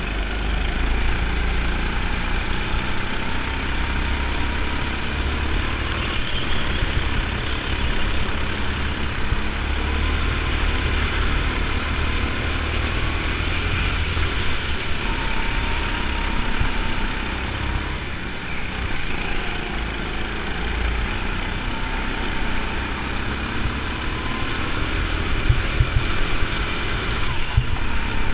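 Go-kart engine running under racing load, heard onboard, its pitch rising and falling as the kart brakes and accelerates through the corners, over a heavy low rumble of vibration. A few knocks come near the end.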